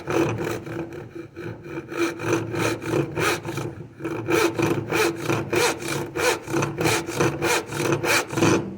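Back saw cutting into wood held in a bench vise, in quick back-and-forth strokes of about three or four a second, across the end grain of a finger-joint waste section. The strokes pause briefly about three and a half seconds in, then carry on.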